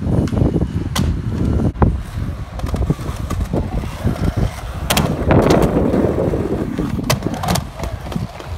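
Skateboard wheels rolling over smooth concrete, broken by several sharp clacks of the board hitting the ground.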